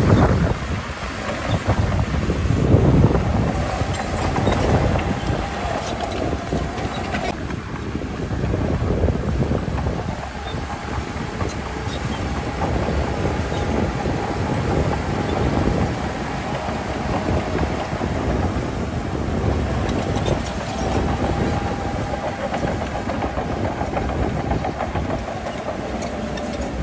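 Shantui DH17C2 crawler bulldozer working: its diesel engine runs under load with a steady clatter of steel tracks, and a high whine comes and goes.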